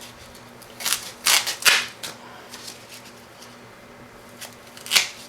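Packing foam being cut and handled: three short noisy rasps from about a second in, and one more near the end.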